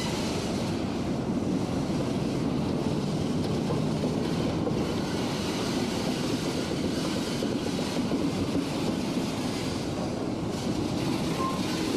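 Freight train boxcars rolling past on the rails: a steady rumble of steel wheels on track.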